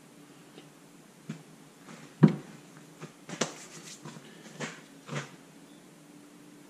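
Scattered knocks and clicks of objects being handled on a wooden workbench, about six in all, the loudest a single thump a little over two seconds in. A faint steady hum runs underneath.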